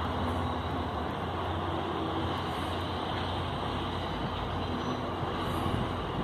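Steady distant engine rumble with no sudden events, and a faint hum that comes and goes.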